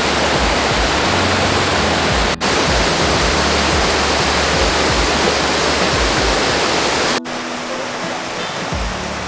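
Rushing water from a mountain stream or waterfall, a loud steady hiss. It breaks off abruptly twice and is quieter after the second break.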